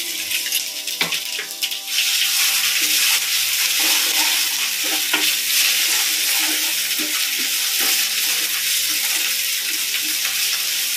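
Hot ghee sizzling in a frying pan. The sizzle flares up loudly about two seconds in as ginger-chilli-garlic paste goes into the spice tempering, and then the pan is stirred, with a spoon scraping against it.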